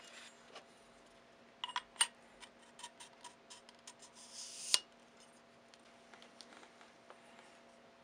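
Hard clicks, taps and scrapes of ATI Talon forend parts being handled and the rear adapter fitted onto a tube by hand, with a cluster of clicks about two seconds in and a scrape rising to a sharp click about halfway through. A faint steady hum runs underneath.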